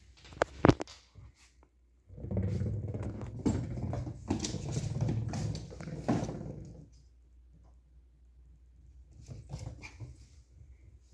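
Puppy growling in play for about five seconds, a low rumbling sound that starts about two seconds in. Before it come a couple of sharp knocks, the loudest of them under a second in, and a few faint clicks follow near the end.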